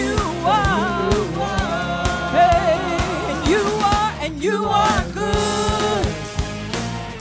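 Gospel praise team singing a worship song, the voices sliding through drawn-out runs without clear words, over instrumental accompaniment with a steady beat; the music breaks off briefly about four seconds in.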